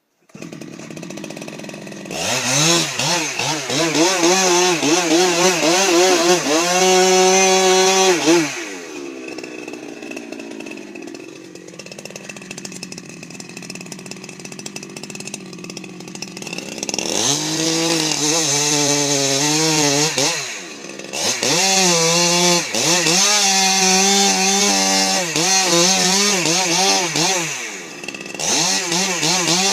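Chainsaw revving, its pitch rising and falling again and again. It drops to a quieter idle for several seconds in the middle, then revs hard again.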